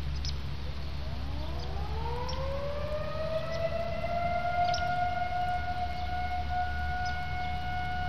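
Outdoor warning siren winding up: starting about a second in, its tone rises over a few seconds, then holds steady.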